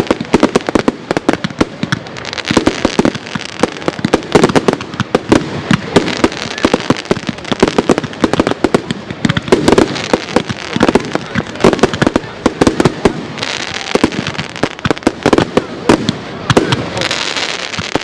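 Fireworks display: a rapid, continuous barrage of aerial shells bursting with sharp bangs and crackling, several reports a second, with stretches of hissing crackle.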